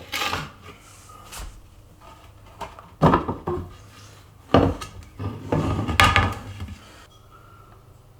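Wooden cabinet parts being handled: a series of knocks and clatter, with a longer scrape or slide about two thirds of the way through.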